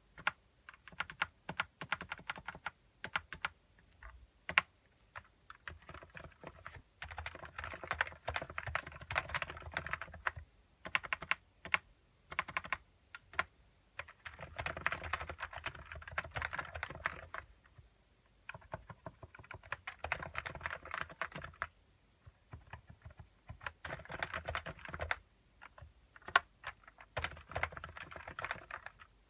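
Typing on a Plum 84 Topre-clone keyboard: 35 g electro-capacitive rubber-dome switches, lubed and without dental bands. Scattered single key presses, then several runs of quick continuous typing a few seconds each, with short pauses between them.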